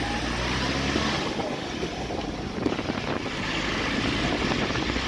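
A vehicle driving along a road: a steady low engine hum under road and wind noise, with a few light knocks and rattles.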